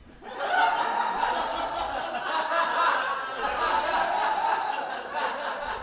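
Audience laughing together after a punchline. The laughter starts about a quarter second in, holds steady and dies down near the end.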